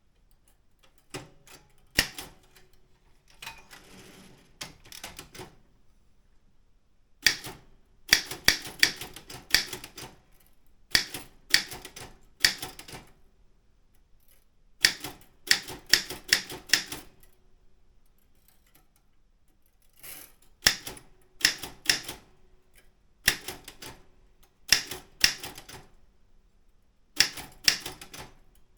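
Keys of a Daro Optima M16 wide-carriage manual typewriter being struck, a run of quick sharp clacks in bursts of a second or two, with short pauses between bursts.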